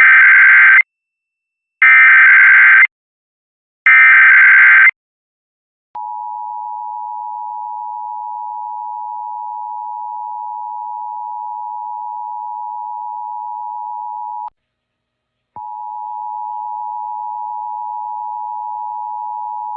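Emergency Alert System Required Monthly Test: three one-second bursts of SAME header data tones, two seconds apart. Then the steady two-tone EAS attention signal (853 and 960 Hz) sounds. It drops out for about a second two-thirds of the way through, then resumes.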